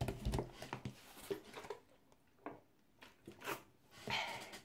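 Plastic bottle crinkling and being handled close to the microphone: irregular crackles and rustles, loudest at the start and again about four seconds in.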